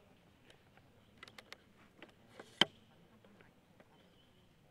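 A few short sharp clicks over a quiet background, with one much louder click about halfway through.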